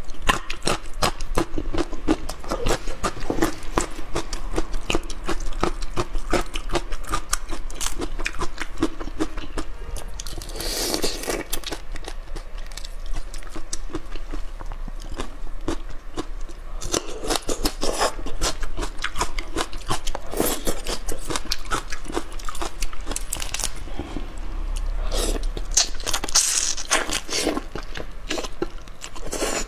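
Close-miked chewing and crunching of food, a dense run of wet mouth clicks and smacks, with several louder bursts along the way; near the end she is biting into spicy marinated shrimp.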